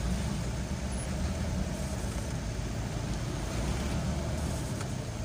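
Steady road traffic noise: a low engine rumble under an even hiss of vehicles moving on the road.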